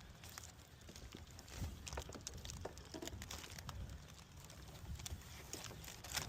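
Scattered light clicks and knocks from a replacement headlight assembly being handled and fitted, over a faint low rumble.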